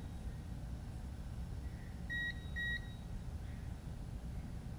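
Multimeter continuity tester giving two short, high-pitched beeps about half a second apart as the probes touch the flight controller's pads: the beep signals a closed circuit, confirming the connection.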